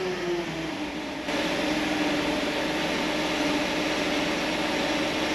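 Steady mechanical hum with a faint droning tone that slides down in pitch about a second in and then holds steady.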